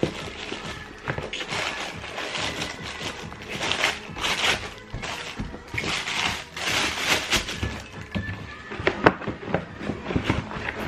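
Rustling and handling noises as trainers and their packaging are handled, over a background music mix, with a few sharp knocks near the end, the loudest about nine seconds in.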